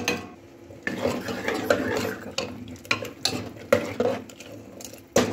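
A ladle stirring mushrooms and peas in thick masala gravy inside a metal pressure cooker, scraping and clinking irregularly against the pot. There is a sharp knock at the start and another near the end.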